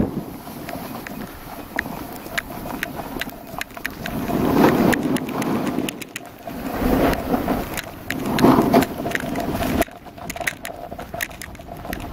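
Skis scraping and hissing over packed snow on a downhill run, rising in three louder swells as the skier turns, with faint crackles between.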